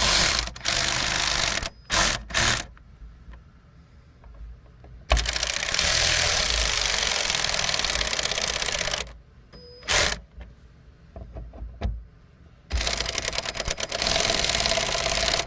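Cordless power driver running screws into a fuel pump lock ring repair ring on a plastic gas tank, in several bursts: short ones at the start, a run of about four seconds in the middle, a brief one about ten seconds in, and another run near the end. The screws are being snugged down to about 10 to 13 foot-pounds.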